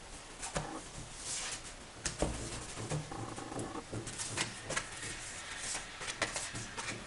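Tarot cards handled on a cloth-covered table: the deck gathered up, shuffled and cards dealt down. It comes as an irregular run of soft slides, flicks and light taps.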